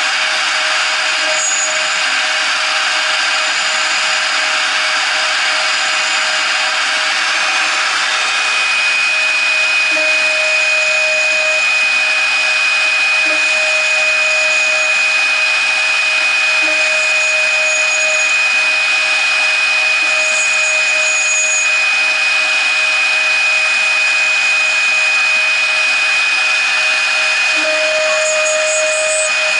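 CNC router's 0.75 kW spindle running with a 2 mm end mill cutting aluminium angle: a steady, loud whine and hiss. A high steady tone joins about eight seconds in and holds.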